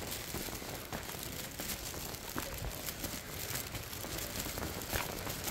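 Footsteps of a person walking on a stone path and steps, sharp scuffs about every half second to a second, over a steady outdoor hiss.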